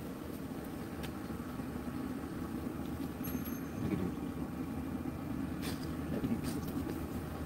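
A steady low rumble in the background, with a few sharp clicks as a lighter is flicked to light birthday-cake candles.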